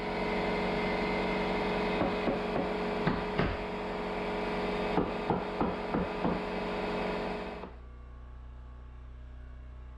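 A corded power tool running steadily while cutting out wood framing in the ceiling, with scattered sharp knocks of wood over it. The tool stops about three-quarters of the way through, leaving a low hum.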